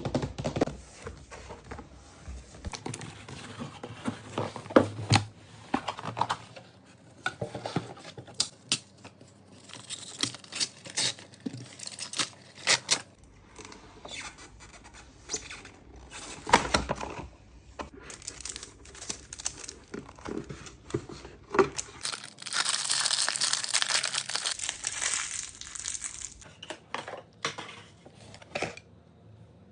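Packaging of a Dyson hair dryer being opened by hand: tearing and crinkling of paper and plastic, with many small clicks, scrapes and knocks of handling. About 23 seconds in there is a longer tearing noise lasting a few seconds.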